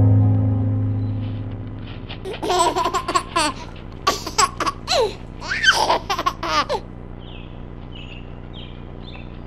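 A person laughing hard in a string of bursts for about four and a half seconds, after music fades out at the start; faint bird chirps follow near the end.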